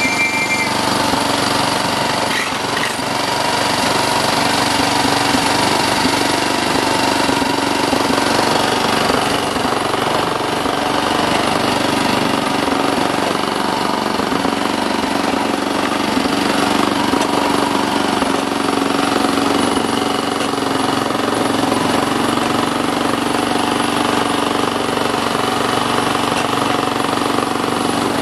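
A 7¼-inch gauge miniature train in motion, heard from the carriage: a steady, fast rattle and clatter of wheels and carriage on the track, with an engine-like drone under it.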